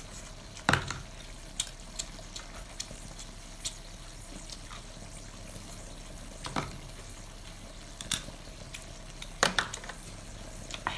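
Close-up eating sounds of sauce-coated lobster claws: scattered short, wet smacks and slurps, about ten in all, over a faint steady hum.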